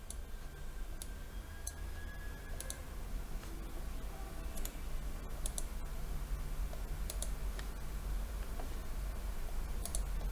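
Computer mouse clicking: scattered single clicks and quick double-clicks, spread out over several seconds, over a low steady hum.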